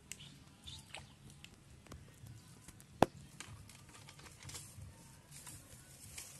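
Faint rustling and light clicks of a fishing rod and line being handled as a small fish is landed, with one sharp click about three seconds in.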